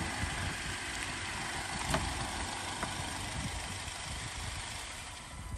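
Jeep Wrangler engine idling steadily under its open hood, growing fainter near the end.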